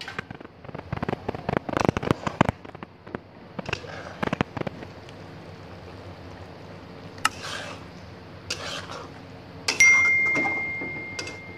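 Steel spoon clattering and scraping in a wok as fried egg balls are stirred into the sauce, sharp clicks and knocks coming in clusters over a steady low hum. Near the end, a sharp clink is followed by a single ringing tone that fades over about two seconds.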